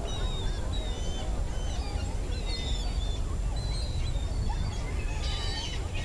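A flock of gulls calling: many short, overlapping cries throughout, thickening into a dense cluster near the end, over a steady low rumble.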